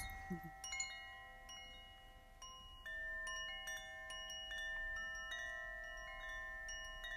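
Chimes ringing: clear metal notes at different pitches sounding one after another, one or two a second, each ringing on and overlapping the next. They grow louder about three seconds in.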